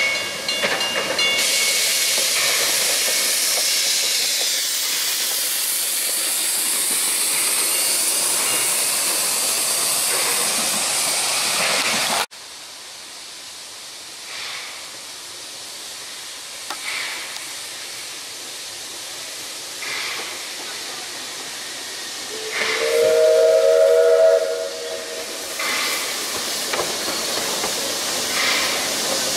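NGG16 Garratt steam locomotive passing close with a loud steady hiss of steam, and a high tone at the start that cuts off about a second in. After an abrupt cut it is heard quieter, with a few faint knocks, and its steam whistle sounds once for under two seconds, rising slightly in pitch as it opens.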